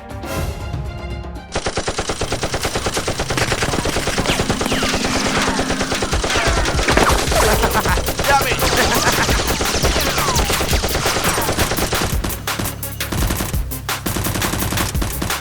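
Automatic gunfire: rapid, continuous shots that start suddenly about a second and a half in and keep going.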